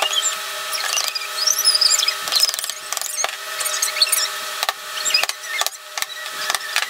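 A metal hand tool clicking sharply about a dozen times, unevenly spaced, as it presses fasteners into the back of a wooden picture frame. A steady hum runs underneath.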